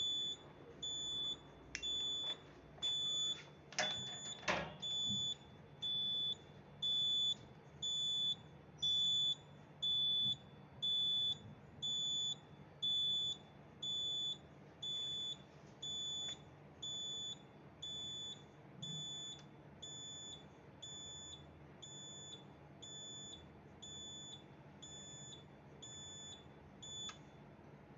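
Fire alarm beeper sounding a single high-pitched beep about once a second, each beep about half a second long, until it stops shortly before the end. A few sharp clicks come in the first few seconds.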